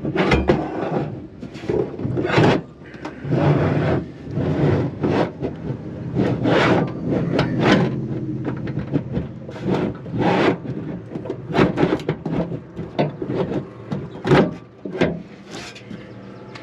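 A slide-out toolbox drawer unit being lifted, shifted and set down into its mounting brackets: irregular scraping and rubbing with repeated knocks.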